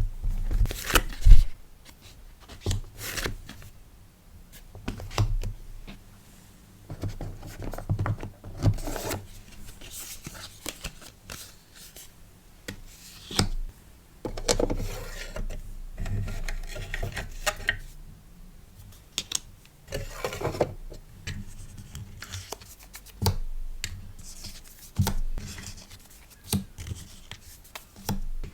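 Hands packing a sticker order: irregular rustling, scraping and light taps of paper and plastic packaging, with short bursts of handling sounds scattered through.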